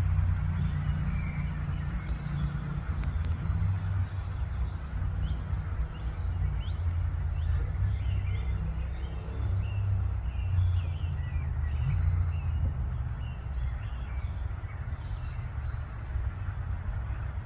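Small birds chirping and twittering in short, scattered calls over a steady low rumble.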